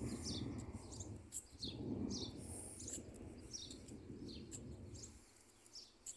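Small birds in the trees chirping over and over, short high chirps that fall in pitch, several a second. Under them a low rumble dies down about five seconds in.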